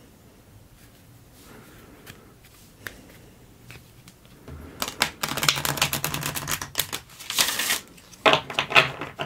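A deck of tarot cards handled and shuffled close to the microphone: a few faint card clicks at first, then a dense run of rapid card flicks from about halfway through, and a shorter run near the end.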